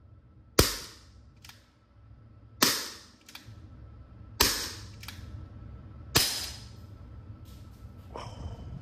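Gas-powered BB revolver fired four times, a sharp pop about every two seconds, with a lighter click between shots. Only one BB is left in the cylinder, so most of the pops are shots of gas alone.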